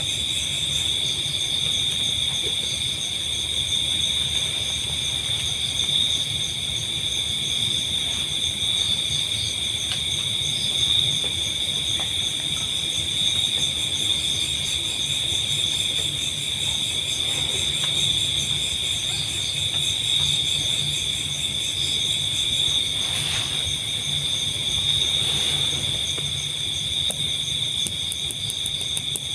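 A dense chorus of night insects, such as crickets, shrilling steadily at several high pitches, with a low rumbling noise underneath.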